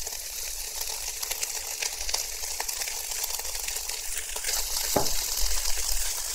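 Cold cooked rice sizzling and crackling in hot oil in a wok with diced sausage and onion, stirred with a spatula. The sizzle grows louder about halfway through, with a single knock near the end.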